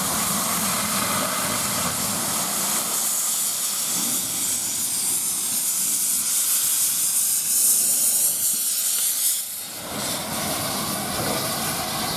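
Steam hissing steadily from the open cylinder drain cocks of GWR Castle-class 4-6-0 no. 4079 Pendennis Castle. The hiss falls away briefly just under ten seconds in, then carries on a little lower.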